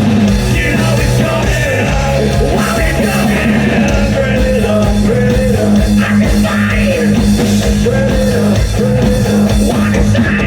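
Rock band playing loud: electric guitar, bass and drums, with a lead line wavering in pitch over a steady low note.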